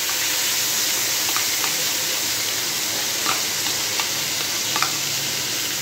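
Onion paste sizzling in hot refined oil in a wide metal kadai: a steady frying hiss with a few faint ticks.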